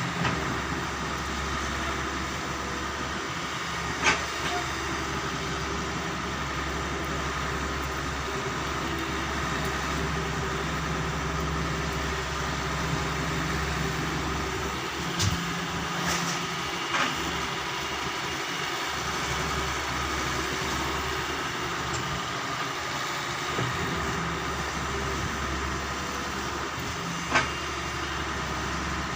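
Doosan 140 wheel excavator's diesel engine running steadily while loading gravel, with a few short sharp knocks spread through.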